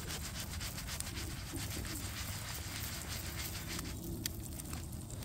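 Eggs frying in a pan over campfire embers, sizzling and spitting with a dense run of fine crackles.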